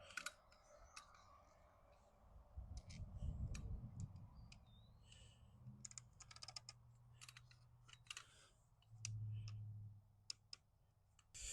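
Near silence, with scattered faint clicks and two brief low rumbles, one a few seconds in and one near the end.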